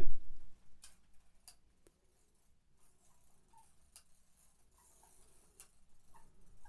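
Yashica 24 twin-lens reflex's film advance crank being wound clockwise, giving faint, scattered clicks as the film is wound on toward frame one.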